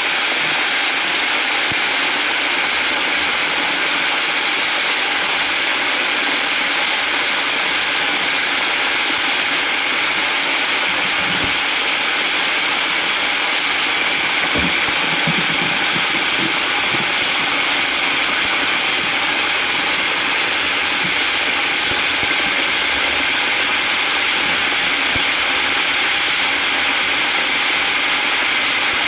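Heavy rain drumming steadily on a vehicle's roof and windshield, heard from inside the vehicle as a dense, even rattle of drops.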